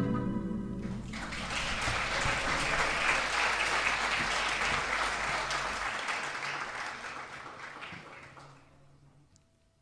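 Applause, many hands clapping, that fades out and stops about two seconds before the end.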